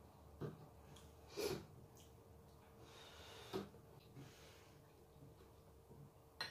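Faint eating sounds: a metal spoon clicking a few times against a ceramic mug as food is scooped, with a short breathy noise about a second and a half in.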